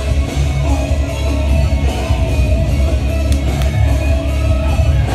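Loud rock entrance music with singing over a heavy bass line, played over a venue's sound system as a wrestler makes his entrance.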